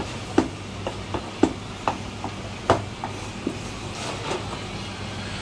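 A meat cleaver chopping marinated goose intestines on a plastic cutting board: about eight sharp, irregular knocks, roughly one every half second, over a steady low hum.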